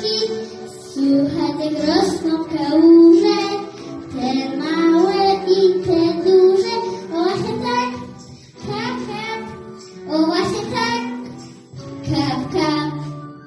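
A girl singing a children's song over a recorded backing track, her last phrase dying away near the end.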